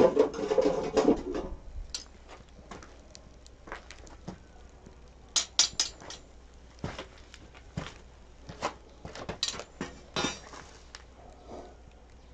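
Crackling and popping from a burning paper instant-noodle cup filled with molten aluminium as the noodles cook and the flames die down. The crackling is denser and louder in the first second or so, then becomes scattered sharp pops and clicks.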